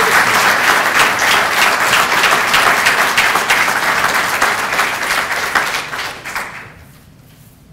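An audience clapping in applause, dying away about six and a half seconds in.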